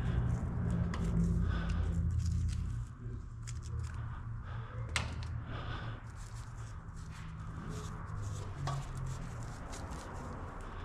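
Scattered light clicks and rustles of hands working wires, with a sharper click about five seconds in, over a steady low hum that drops a little after about two and a half seconds.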